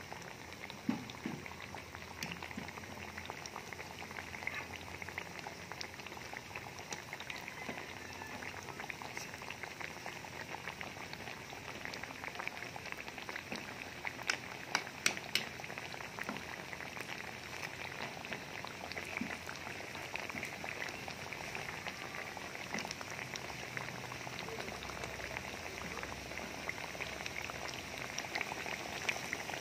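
Battered banana pieces (maruya) deep-frying in hot oil: a steady sizzle full of small crackles, with a few louder pops about halfway through.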